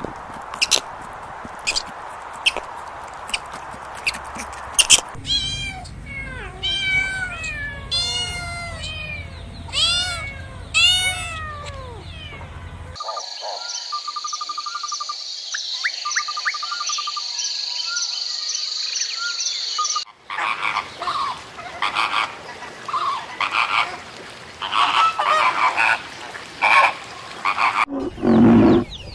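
A string of different animal calls, one after another: a few seconds of clicking, then repeated arching chirps, then a steady high trill, then a run of short pulsed croaking calls.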